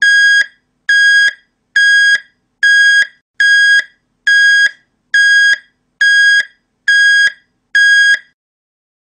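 Electronic alarm beeper sounding a steady high tone in short beeps, about half a second each and a little faster than one a second, ten times before stopping. It is the error alarm for a wrong spray nozzle picked at the station.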